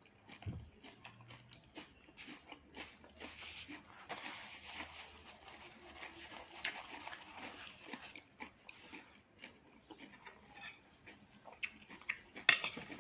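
Chewing a raw vegetable salad close to the microphone: crisp lettuce leaves crunching amid small wet mouth clicks, with a couple of louder crunches near the end.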